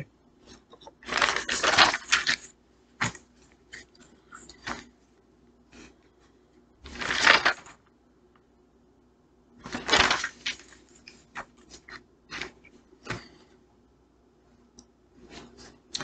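Handling noise at a desk: three bursts of rustling, the first about a second in, with scattered light clicks and taps between them.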